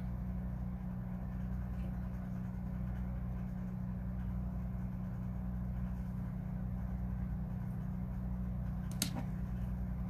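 Steady low hum with a faint hiss, broken by one sharp click about nine seconds in.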